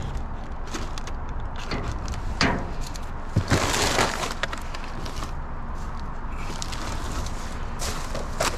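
Clear plastic trash bags rustling and crinkling as they are grabbed and shifted inside a metal dumpster, with scattered knocks; the longest, loudest rustle comes about three and a half seconds in. A steady low rumble runs underneath.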